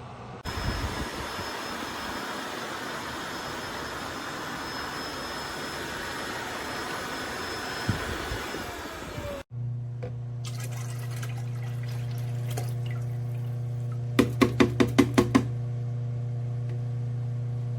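Tineco Floor ONE S5 wet-dry vacuum running: a steady rushing sound with a thin high whine, sliding down in pitch as it powers down about halfway through. Then a steady low hum, with a quick run of seven sharp beats about two thirds of the way through.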